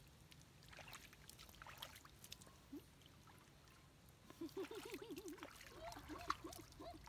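Water dripping and splashing faintly as a wet baby monkey is washed by hand. About four seconds in, a wavering, warbling voice starts a run of short cries that rise and fall quickly in pitch.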